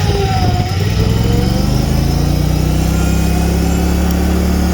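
John Deere F687 front-deck mower's 20 hp Kohler Command engine just after starting, its pitch rising over the first second or so, then running steadily and smoothly.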